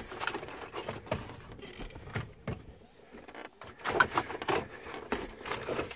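Plastic dashboard trim bezel being handled and worked loose by hand: a run of irregular small clicks, knocks and plastic rubbing, louder and busier from about four seconds in.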